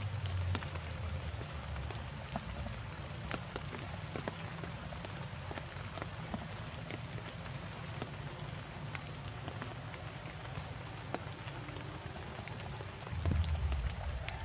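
Patter of rain or dripping water: scattered irregular drops over a steady hiss. A low rumble swells briefly in the first second and again near the end.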